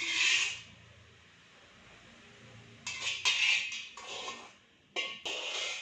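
Kitchen utensils scraping and clinking against pots and dishes in three short bursts: one at the start, one about three seconds in, and one near the end.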